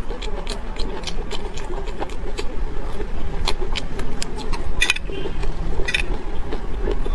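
Close-miked chewing of food (raw chilies and egg), with frequent sharp crunches and mouth clicks over a steady low rumble.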